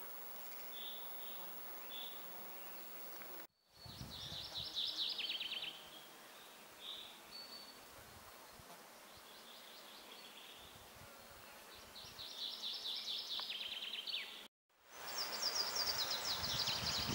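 Quiet outdoor nature sound with short, high-pitched trilled song phrases from small wild animals recurring every few seconds, loudest near the end. The sound cuts out abruptly twice.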